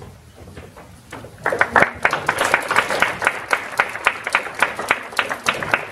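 Audience applauding, a crowd's many hand claps starting about a second and a half in.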